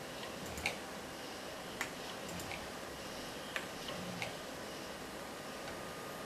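A wire whisk tapping against the sides of a plastic mixing bowl: about six light, irregular clicks, over a steady faint hiss.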